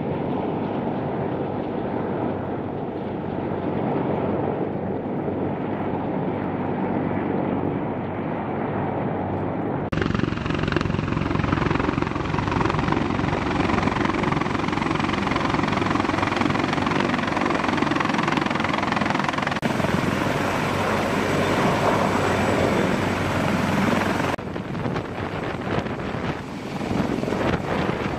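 CH-53 heavy-lift helicopters flying in, then hovering low: a steady, dense thudding rotor-and-turbine noise, with wind on the microphone. It grows louder and fuller about ten seconds in and shifts abruptly twice more near the end.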